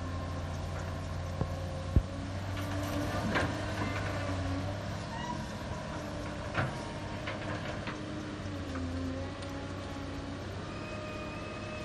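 Cat 320 hydraulic excavator's diesel engine running steadily under load, its hydraulic whine shifting in pitch as the boom and bucket work. A few sharp knocks and clatters, the loudest about two seconds in, as soil and rocks are dumped into a dump truck's bed.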